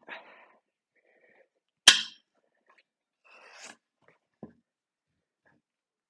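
A sharp bang about two seconds in, followed by a short scrape and a light knock: a manual tire changer's bead breaker being worked against a tire on a steel wheel.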